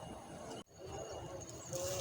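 Outdoor ambience: a steady hiss that drops out sharply about a third of a second in, then returns with faint bird calls.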